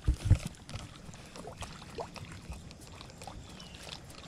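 A spinning-rod cast from the shore: a couple of low bumps of handling as the rod swings through at the start, then faint water sounds with scattered small ticks from the reel and line.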